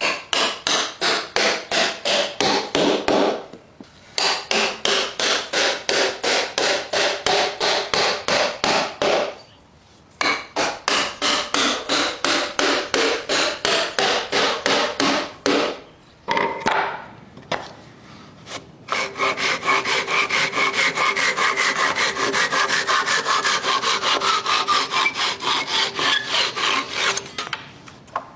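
Hand saw cutting through wood in quick, even back-and-forth strokes, about three to four a second. The strokes come in several runs broken by short pauses. In the last, longest run a faint ringing tone slowly falls in pitch.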